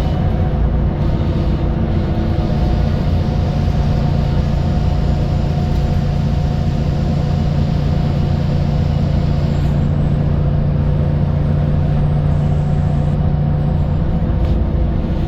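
Heard from inside the cabin of a VDL SB200 Wright Pulsar 2 single-deck bus, the engine and drivetrain running steadily under way. It is a constant low drone with a few held hum tones.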